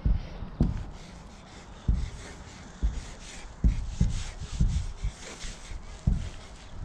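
Felt tip of a paint marker rubbing and scratching over a hard plastic bin lid as a tag is written in quick strokes, with dull low knocks throughout as the hand and marker press on the lid.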